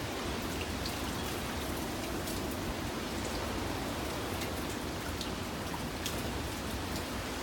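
Heavy typhoon rain falling in a steady hiss, with scattered drops striking close by.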